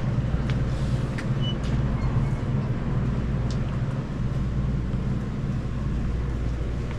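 Steady low rumble of a motor vehicle running, with a few faint ticks.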